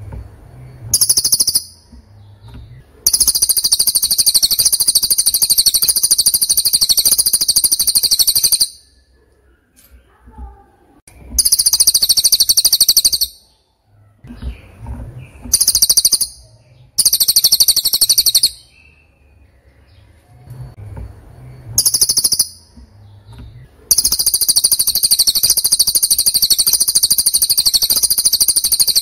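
A very high, rapid buzzy trill repeated in bursts: two short ones, then long runs of about five seconds and two seconds, several brief ones, and a long run of about five seconds near the end, with faint low rumble in the gaps.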